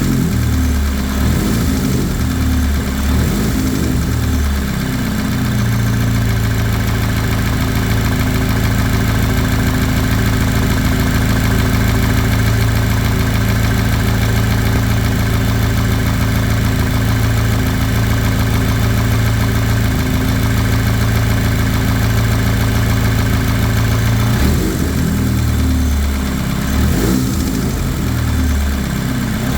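Volkswagen/Audi EA888 turbocharged inline-four petrol engine running, its speed changing for the first few seconds and again near the end, holding steady in between. The owner takes its noise for piston slap.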